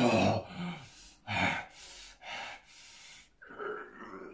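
A man's hard breaths and grunts of effort: a falling grunt at the start, then a string of short, sharp breaths about twice a second, while he swings a broom overhead like an exercise.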